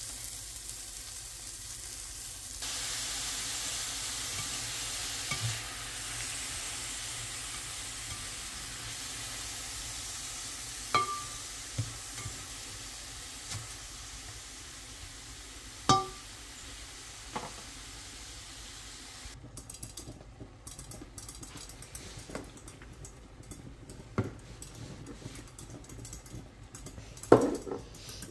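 Onion and strips of beef sizzling as they fry in a stainless steel pan and are stirred. A few sharp clinks of the utensil on the pan stand out, and the loudest comes near the end. After about two-thirds of the way the sizzle thins and gives way to lighter scraping and ticking.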